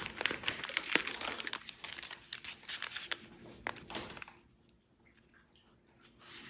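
Packaging being handled, crinkling and rustling with many small crackles for about four seconds, then it stops.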